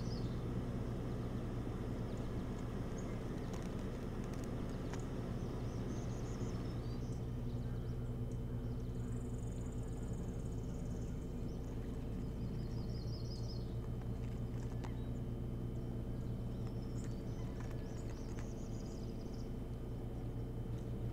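A steady low electrical hum from the nest camera's microphone feed. Small songbirds sing short high trills of rapidly repeated notes several times over it.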